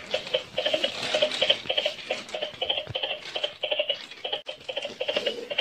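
Singing unicorn toy playing an electronic tune through its small speaker: quick, short, evenly repeated notes.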